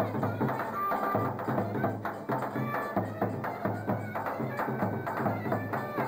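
Live Turkish folk dance music: a davul drum beating a steady, even rhythm under a clarinet playing the melody.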